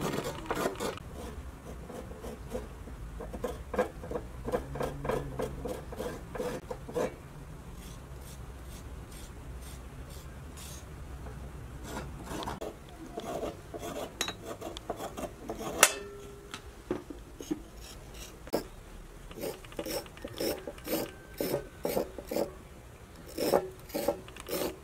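Kitchen knife blade scraping the skin off raw carrots: runs of quick, rhythmic rasping strokes with short pauses between them. One sharp click stands out about two-thirds of the way through.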